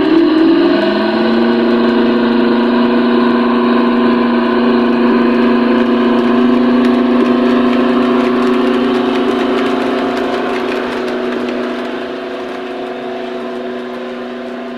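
Diesel engine sound from a model locomotive's DCC sound decoder, a steady drone whose pitch dips and settles about a second in. It eases off over the last few seconds.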